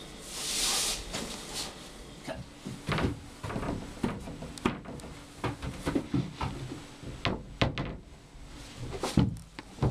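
A cardboard box scrapes briefly across a tile floor. Then closed cupboard doors give a run of irregular knocks and rattles, the loudest near the end.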